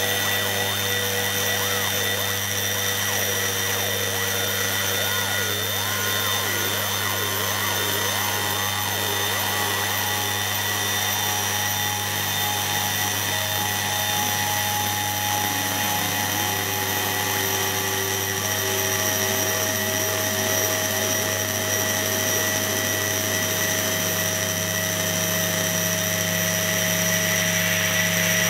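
Electronic noise drone from analog machines: a steady low hum under several high, held whines, with wavering, warbling tones sliding up and down through the middle for much of the time. New held tones come in about two-thirds of the way through.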